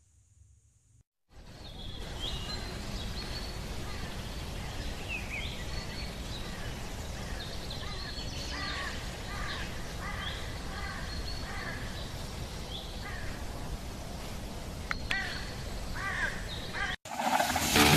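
Outdoor ambience of steady background noise with many birds calling, short chirps and down-sweeping whistles repeated throughout. Near the end it cuts off abruptly and loud electric guitar music begins.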